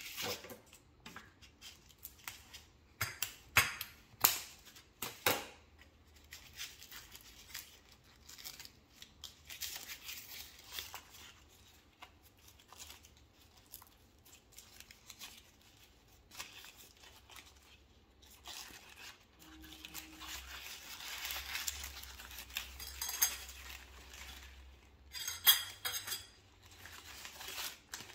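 Boiled bamboo leaves being peeled off a rice dumpling: rustling and crackling as the leaves are pulled apart, with a louder crackle near the end. A handful of sharp clicks and snaps come a few seconds in.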